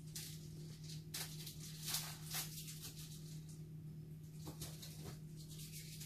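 Low steady hum with a few soft, brief rustles and clicks scattered through it.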